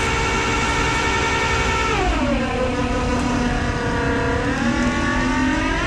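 Rollback tow truck's engine running at steady revs; about two seconds in the revs drop, stay low, and climb again near the end.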